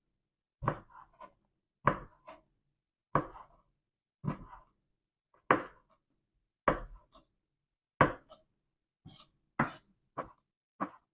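Kitchen knife slicing a bell pepper on a cutting board: the blade knocks on the board about once a second, each knock with a small follow-up tap, coming faster near the end.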